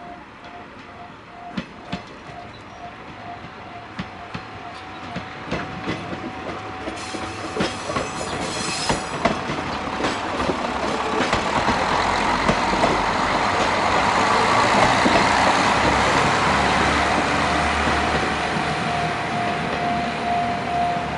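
Diesel railcar rolling past, growing steadily louder: its wheels click over the rail joints and the low engine rumble comes up as it draws level. A pulsing, bell-like tone repeats about twice a second at the start and turns into a steady tone near the end.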